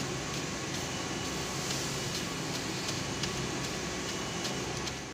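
Adding-machine paper roll slitter rewinder giving a steady mechanical hum, with light paper rustling and faint irregular clicks as the slit paper strips are handled.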